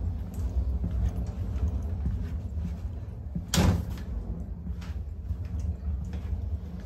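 Footsteps walking along the side corridor of a railway compartment coach, scattered soft knocks over a steady low rumble, with one louder knock about three and a half seconds in.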